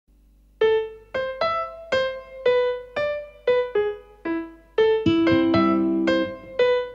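Background music: a piano playing a slow melody of single struck notes, about two a second, each fading away. Low held chord notes come in about five seconds in.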